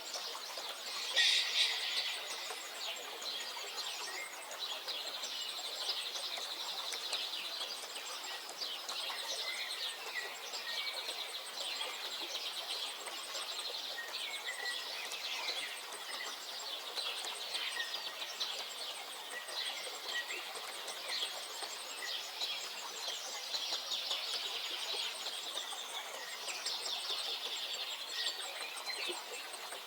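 Several birds singing and chirping over one another, a continuous mix of short chirps and trills, loudest briefly about a second in.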